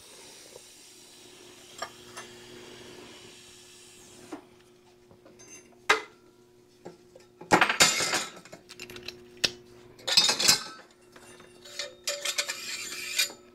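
Stainless steel exhaust tubing and metal clamps handled on a steel workbench: a few clicks, then three louder bursts of metallic clattering and scraping in the second half. A faint steady hiss fills the first few seconds, and a low steady hum runs underneath.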